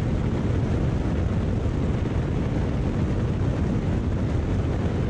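High-wing light airplane in climb after takeoff: engine and propeller running steadily with rushing airflow, a constant deep rumble that holds an even level throughout.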